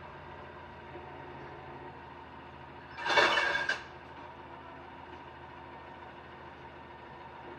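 Recycling truck engine idling with a steady hum. About three seconds in, one loud burst cuts sharply across it for under a second and then stops.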